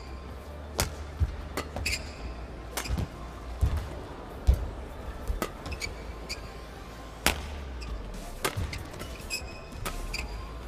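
Badminton play: sharp racket strikes on the shuttlecock and footfalls at irregular intervals, with short squeaks of court shoes on the mat, over a steady low hum in the hall.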